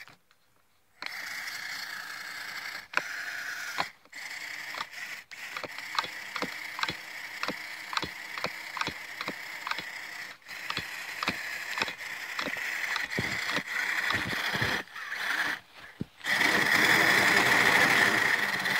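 ECX Barrage Gen2 RC crawler's electric motor and gears whining as the truck drives, with a regular clicking about two to three times a second. The whine starts about a second in and grows much louder near the end.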